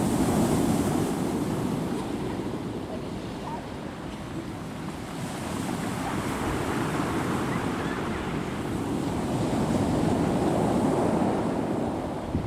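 Sea waves breaking and washing in, swelling near the start and again about ten seconds in, with wind buffeting the microphone.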